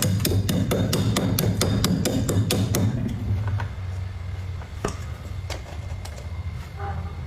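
Music with a fast, even clicking beat, about five clicks a second over a low hum, stops about three seconds in. After that come a few scattered sharp cracks of freezer frost.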